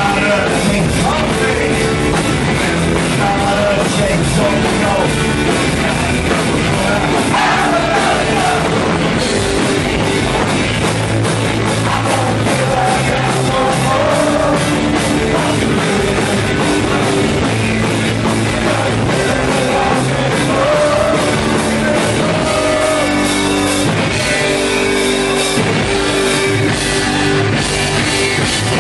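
Punk rock band playing live at a steady loud level: electric guitars, bass and drums, with a singer.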